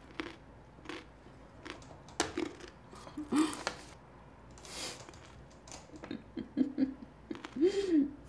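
A person biting and chewing a raw carrot: irregular crisp crunches, with a few short low hums near the end.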